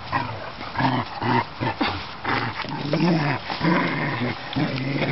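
Rhodesian Ridgeback–Shar Pei mix dog growling in a string of short, low growls while playing, as she mouths and pushes a plastic ball, with scuffs and knocks in between.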